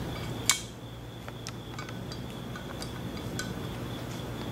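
Small clicks and taps of metal parts being handled on a transmission valve body, with one sharper click about half a second in and lighter ticks scattered after it. A steady low hum runs underneath.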